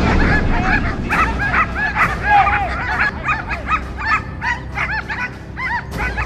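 Dogs barking and yipping over and over in quick succession, working dogs worked up by a decoy with a bite sleeve.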